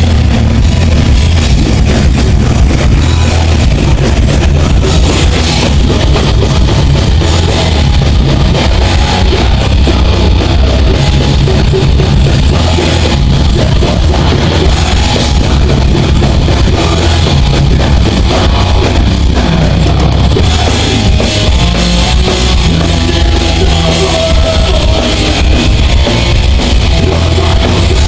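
Heavy metal band playing a song: distorted electric guitars over a drum kit, loud and unbroken.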